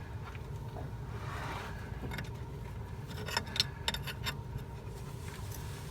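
Scattered clicks, clinks and scrapes of hands and tools working a coolant hose onto a fitting in the engine compartment, busiest in the middle, over a steady low hum.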